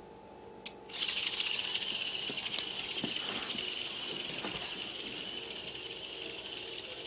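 Hexbug vibrating robot toy starting up with a click about a second in, then buzzing and rattling steadily, slowly getting fainter.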